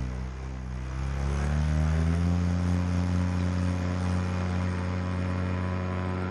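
Paramotor engine and propeller throttling up, the pitch rising over the first two seconds or so, then running steadily at high power for the takeoff run.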